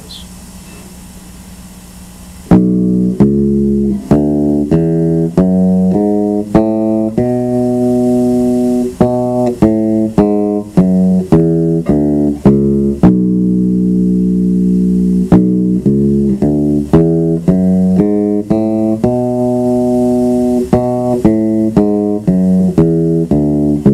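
Electric bass guitar plucked fingerstyle, one note at a time, running melodic minor scales and arpeggios up and down, with a few notes held longer. The playing starts about two and a half seconds in.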